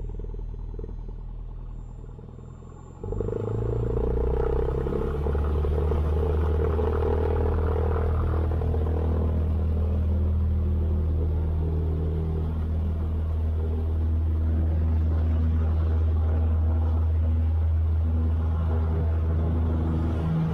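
Cessna 172 piston engine and propeller heard from inside the cockpit, running at low power, then the throttle is opened about three seconds in and the engine rises quickly to full power and runs at a loud, steady drone.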